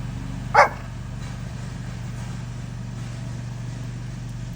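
A small dog barks once, a short sharp yap about half a second in, over a steady low mechanical hum.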